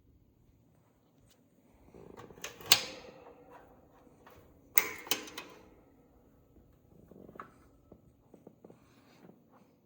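Handling noise from a vintage General Electric box fan: a few sharp clicks and knocks, the loudest about a quarter and about halfway through, with lighter taps near the end.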